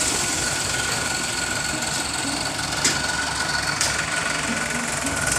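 Heavy diesel engine of earth-moving machinery running steadily at low revs, with a steady high whine over it. Two sharp clicks about three and four seconds in.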